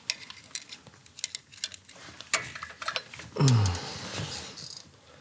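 Metal hand tools clicking and clinking against the engine parts of an old Harley-Davidson flathead as it is worked on, in scattered irregular taps. A brief falling tone sounds a little past three seconds in.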